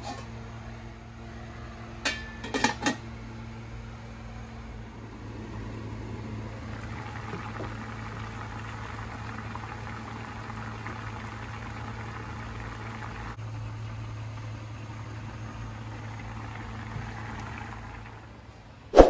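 Fish broth with kamias boiling hard in a metal wok over high heat: a steady bubbling that builds up about five seconds in and fades near the end. A steady low hum lies underneath, and there are a few short sharp clicks about two seconds in.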